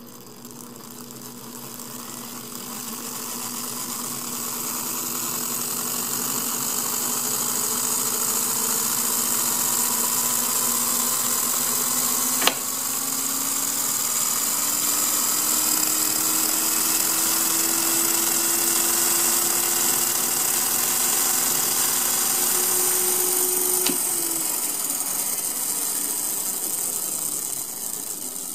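Small electric motor driving a 16:1 gearbox and flywheel taken from a flywheel-driven toy car, spinning up with a high-pitched whine and gear buzz that grows louder and climbs slowly in pitch over the first several seconds. A sharp click sounds about twelve seconds in and a smaller one near twenty-four seconds, and the whine fades out near the end.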